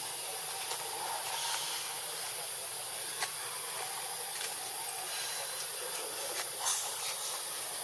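Steady high-pitched hiss with no change in level, broken by a few faint clicks.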